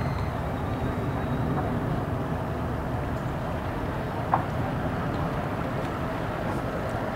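Outboard motor idling steadily as a center-console boat moves slowly through the water. A short, sharp sound comes about four seconds in.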